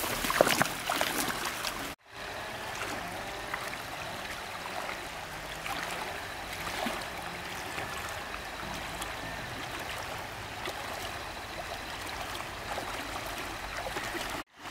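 Water flowing and trickling steadily. The first two seconds, before a sudden break, hold a rapid run of sharp clicks and knocks.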